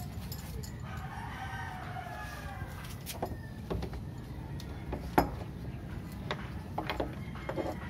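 A rooster crows once, starting about a second in and lasting nearly two seconds. This is followed by several sharp clicks and knocks, the loudest about five seconds in, from a home-made door pulley's strap, hook and rope being fitted over the top of a door.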